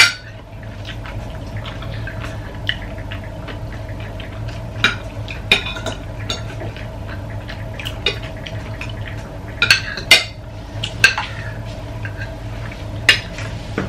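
Metal spoons and forks clinking and scraping on ceramic plates as food is cut and scooped, in scattered clicks throughout, over a steady low hum.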